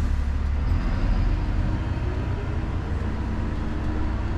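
Refuse collection lorry's diesel engine running as it drives, heard from inside the cab: a steady low drone.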